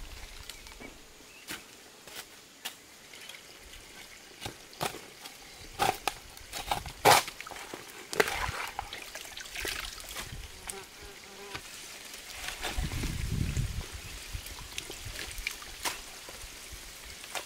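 Long-handled digging tool striking and cutting into wet pond-bank soil, a series of separate sharp chops, followed by water trickling and splashing in the muddy pond.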